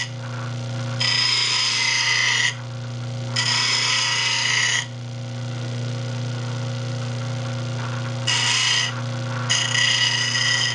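An 8-inch slow-speed bench grinder runs with a steady hum while a steel fingernail gouge is pressed to its white wheel in four short hissing grinding passes. The passes cut relief grinds on the back of the gouge's bevel, with a pause of a few seconds after the second pass.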